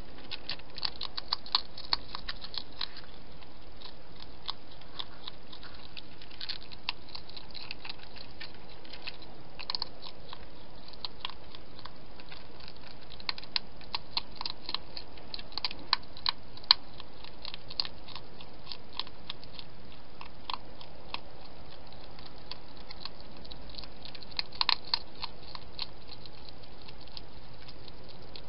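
A hedgehog eating from a food bowl: irregular crunchy chewing clicks that come in bursts, over a steady hiss.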